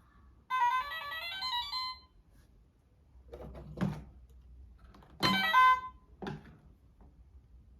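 A short electronic chime: a quick run of stepping beeps about half a second in, then three shorter tonal blips, the kind of tune a toy or appliance plays.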